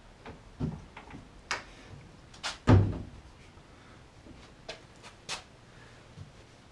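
A car door on freshly adjusted hinges being swung and pushed to check its fit: a series of light metal clicks and knocks, with one heavier thump a little under three seconds in.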